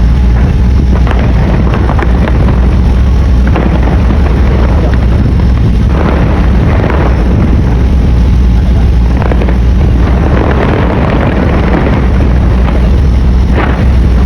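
Large fireworks display: dense, continuous booming of aerial shells, with a steady deep rumble and sharper bangs standing out every few seconds.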